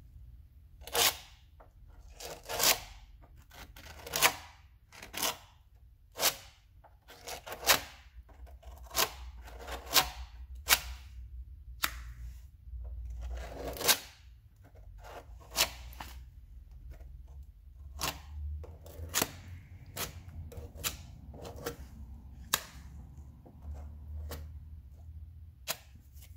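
Metal filler spatula scraping body filler onto a sanded rust spot on a car's steel body panel, in short, sharp strokes about one a second. A steady low hum runs underneath.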